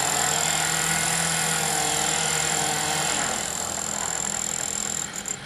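Steady running of vehicle or work-machine engines amid street noise, easing off a little after about three seconds.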